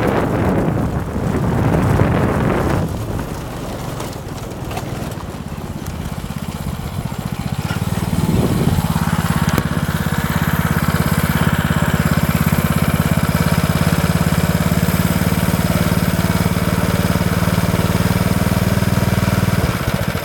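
Go-kart's small engine with wind rushing over the microphone while riding. The rush dies away after about three seconds, and from about eight seconds in the engine idles steadily.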